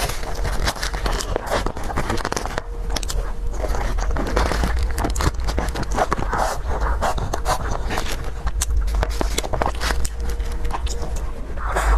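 Close-miked eating sounds: a steady run of small irregular clicks, crackles and wet mouth noises from someone chewing dessert, over a low steady hum.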